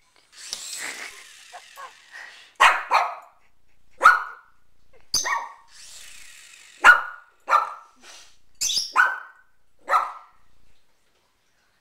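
A dog barking about a dozen times in short, sharp barks at a small toy RC helicopter. The helicopter's electric motor and rotor whir in two brief high-pitched spells, one near the start and one around the middle.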